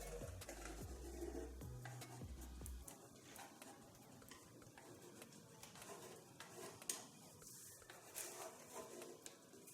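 Faint handling noises: scattered light ticks and soft rubbing, with a low hum that stops about three seconds in.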